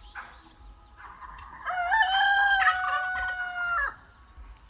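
A rooster crows once: one long crow, loudest through the middle and cut off sharply near the end. A steady high-pitched insect buzz runs underneath.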